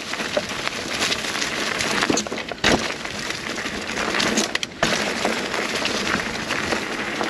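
Mountain bike rolling fast over a dry dirt trail covered in leaves and twigs: a steady noise of tyres over leaf litter, peppered with small clicks and rattles of the bike. Two sharp knocks stand out, one about two and a half seconds in and one near the five-second mark, as the bike goes over logs on the jump line.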